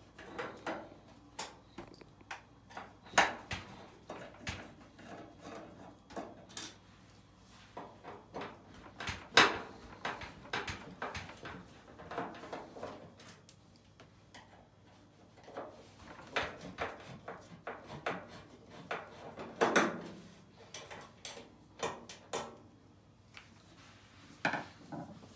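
Irregular clicks, taps and knocks of a screwdriver working screws out of a washing machine's metal front panel, with a few louder knocks among them.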